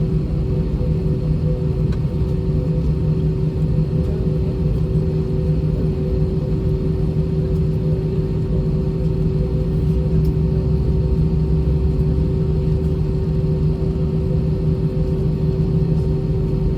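Steady rumble and hum inside the cabin of an Airbus A320 taxiing, its IAE V2500 turbofan engines at idle thrust. A low drone with a few steady humming tones above it, unchanging throughout.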